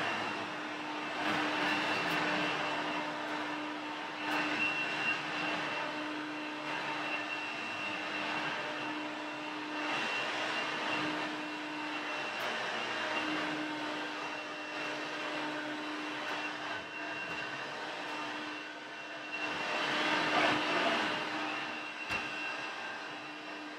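Hoover Elite upright vacuum cleaner running: a steady motor whine over rushing air, its level swelling and easing, loudest about twenty seconds in.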